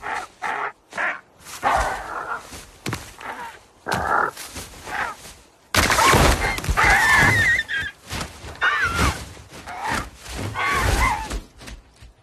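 Animated eagle-and-meerkat scuffle: a string of thuds, scrapes and rustling hits mixed with short wavering animal cries. A sudden burst of noise about six seconds in, as the eagle beats its wings down onto the ground, is the loudest moment.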